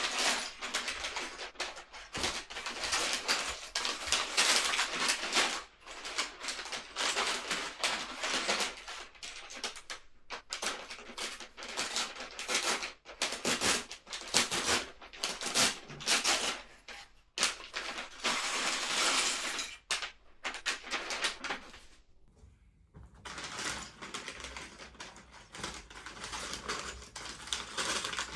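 Dense, irregular crinkling and clicking of a LEGO set being unboxed and handled: packaging and plastic bricks. There is a short lull about 22 seconds in.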